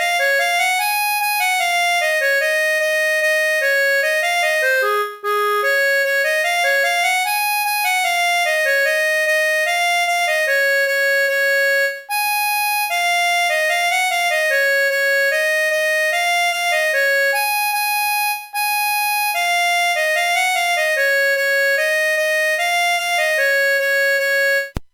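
A stock MediaTek MIDI ringtone played by a MediaTek feature phone's built-in synthesizer: a single looping melody over a lower accompaniment line, with brief breaks about 5, 12 and 18 seconds in. It cuts off just before the end.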